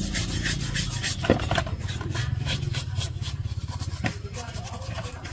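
Rusty metal parts being scrubbed with a motor-driven abrasive tool: a steady motor hum with fast, even pulsing under rubbing and scraping.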